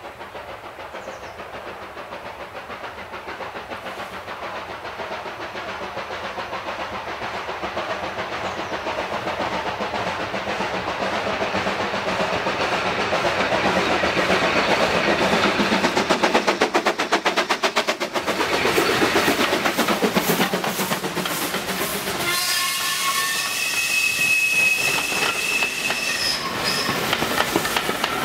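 Steam locomotive approaching under load, its fast exhaust beats growing steadily louder until it passes with a drop in pitch. Its coaches then roll by with wheels clicking over the rail joints, and a few high steady tones sound briefly over them.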